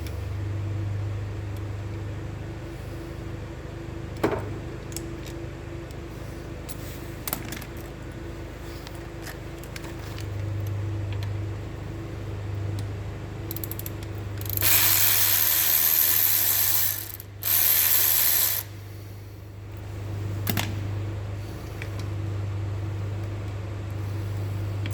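Ratchet wrench clicking while bolts on a motorcycle's rear brake pedal assembly are worked loose, with a few scattered metal knocks. It gives two long runs of rapid clicking, the loudest part, about fifteen and seventeen and a half seconds in.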